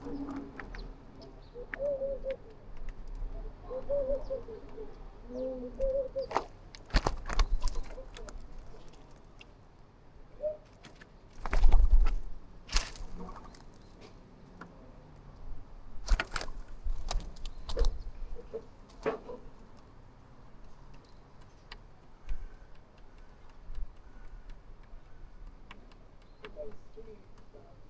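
Pigeons cooing in low, warbling phrases for the first several seconds. Then a scattering of sudden knocks and flutters, the loudest about twelve seconds in, with another cluster a few seconds later.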